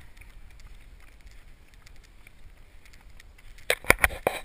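Handheld camera jostled as its holder runs on a paved road: faint rubbing and ticks, then a quick run of loud knocks near the end.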